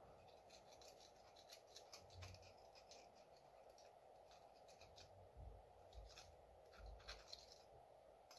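Near silence, broken by faint scattered clicks and light scrapes as small carburetor parts are handled on a workbench, with a few soft low thumps.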